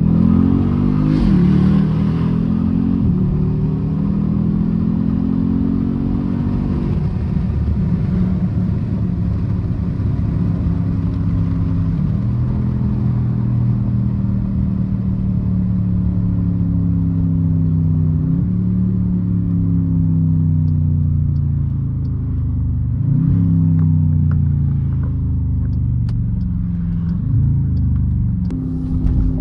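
2014 Jeep Grand Cherokee SRT's 6.4-litre HEMI V8, breathing through a K&N cold air intake, running under way. The engine's pitch jumps and falls several times as the revs change through the gears.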